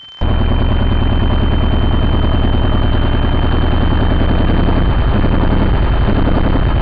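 Motorcycle engine running loud and steady, cutting in abruptly just after the start.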